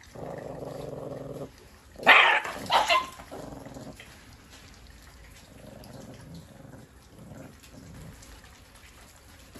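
Puppies fighting over raw meat: a steady low growl for the first second and a half, then two loud sharp barks about two and three seconds in, followed by quieter intermittent growls.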